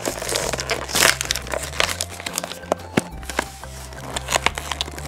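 Plastic blister packaging of a toy multipack being handled and opened: irregular crinkling and crackling of thin plastic and card, over soft background music.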